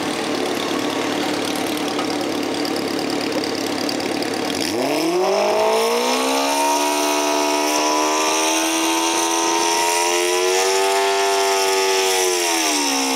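Modified lawn tractor engine running steadily, then revving up sharply about four and a half seconds in and held at high revs under load while it drags the weighted pulling sled, its pitch wavering slightly and starting to fall right at the end.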